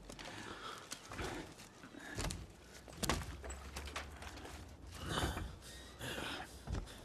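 Film sound effects of a metal armoured suit shifting and clanking as the wearer gets up off the ground, with scattered faint knocks and crunches of twigs underfoot over a low rumble.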